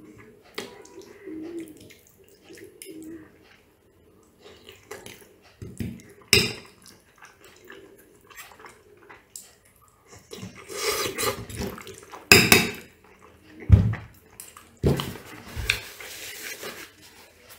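Eating sounds at a table: a metal fork clicking and scraping on a ceramic plate of pasta, with the mouth sounds of eating. Louder bursts of noise come in the second half, with a dull knock among them.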